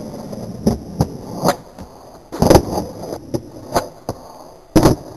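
Skateboard knocks and landings: a run of sharp clacks of the board on the ground, the two loudest about two and a half seconds in and near the end, over the rumble of rolling wheels.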